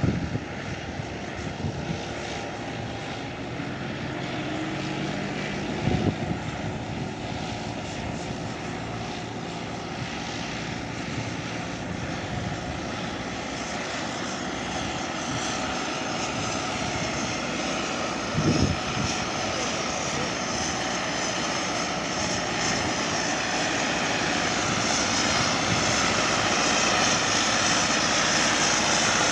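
Tracked rice tractor's diesel engine running steadily under load as it pulls a rotary puddler through a flooded rice paddy, growing louder as it comes closer. A few brief thumps stand out: one at the start, one about six seconds in, and one about two-thirds of the way through.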